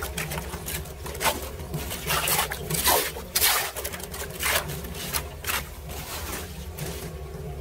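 Irregular splashes and scrapes as debris is raked by hand from a flooded street drain grate and handled in the water.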